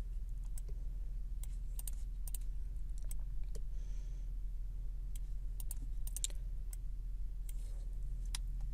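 Computer keyboard keys clicking at irregular intervals, over a steady low electrical hum.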